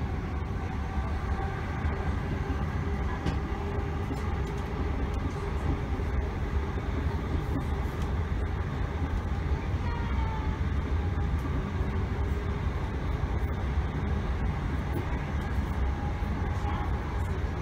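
Interior of a Northern Class 321 electric multiple unit running between stations: a steady low rumble of the wheels on the track, with faint steady tones above it.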